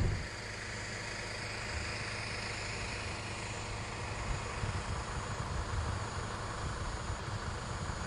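Outdoor background noise: a steady low rumble with a hiss.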